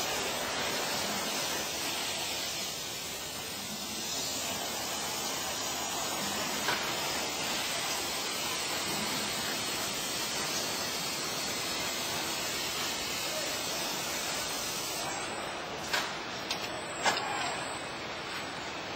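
Steady hiss and running noise of bottling-plant machinery in the palletizing and stretch-wrapping area, with a few sharp clicks near the end.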